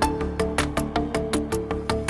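Background music with a fast, steady beat: sharp percussive hits about five or six times a second over pitched electronic notes.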